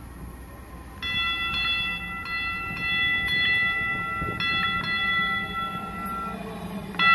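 Light-rail train horn giving one long blast of several high tones together from about a second in until about six seconds, then sounding again just before the end, over the low rumble of the train.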